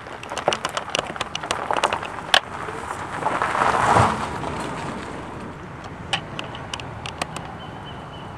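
Tyres of an electric Holden Ute conversion crunching and popping over loose gravel as it moves off, with no engine sound. A broad swell of noise rises to a peak about four seconds in and fades, and scattered pops of stones come again later.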